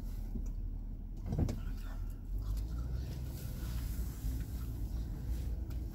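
Low, steady rumble of a car's engine and road noise, heard from inside the cabin as the car rolls slowly along.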